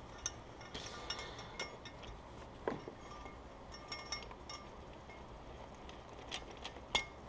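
Light metallic clicks and clinks as a valve spring compressor is handled on a bare aluminium OM642 diesel cylinder head, with a couple of sharper taps, one about three seconds in and one near the end.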